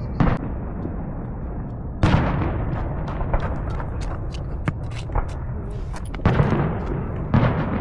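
Fireworks going off: four loud bangs, one right at the start, the biggest about two seconds in and two more near the end, with scattered crackling pops in between.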